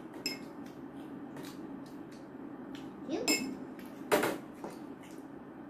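Metal forks clinking and scraping on ceramic plates as two children eat noodles, a scatter of small clicks with a few ringing clinks. There is a short voice sound just after three seconds in and a loud sharp sound about four seconds in.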